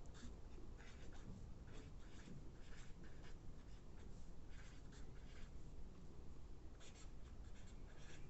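Faint, irregular scratching of writing on paper, stroke after stroke.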